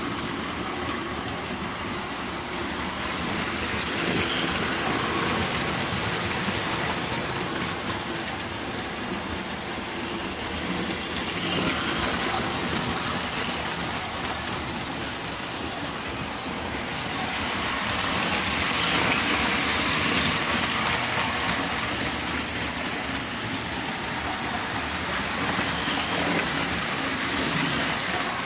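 Lionel tinplate toy trains running on metal track: a steady rumble and rattle of wheels and motors that swells louder several times as trains pass close by.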